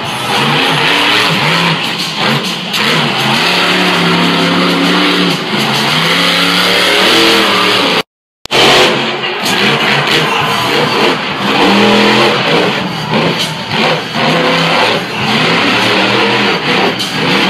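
Monster truck engine revving and running loud, its pitch rising and falling as the truck drives and jumps the dirt ramps. The sound cuts out briefly about eight seconds in.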